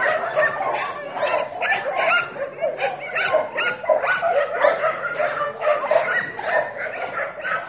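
Several dogs barking and yipping over one another without a break, many short calls a second.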